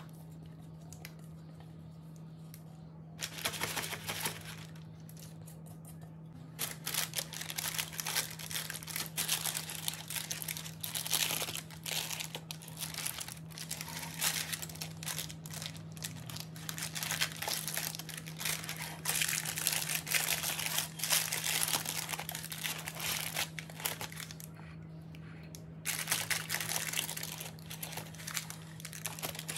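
Parchment paper crinkling and rustling in a springform pan as sticky choux pastry dough is scraped in and spread with a silicone spatula, in irregular bursts after a quieter first few seconds, with a short lull near the end. A steady low hum runs underneath.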